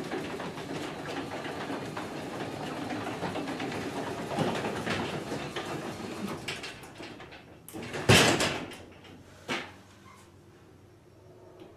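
Newly installed garage door opener running steadily as it lowers the sectional door, stopping about seven seconds in. A loud clunk follows about a second later, then a smaller knock.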